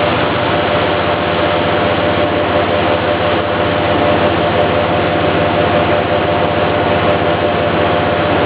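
NUMEN Sigma-9 vertical machining center cutting at high speed: a steady, dense machining noise with a constant tone from the spindle and cutter.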